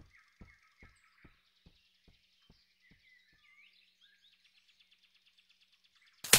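Quiet outdoor nature ambience of faint bird chirps and a thin insect-like buzz, with soft regular thuds about twice a second that fade away over the first three seconds. A sudden loud noise breaks in at the very end.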